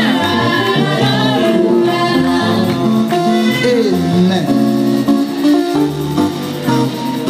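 Gospel praise song sung by a group, led by a woman's voice through a microphone, with instrumental backing.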